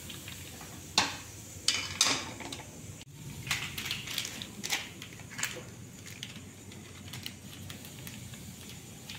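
Sharp metallic clinks and knocks of an aluminium kadai being gripped and handled with pan tongs: a few about half a second apart, then a quicker cluster near the middle, over a faint steady hiss.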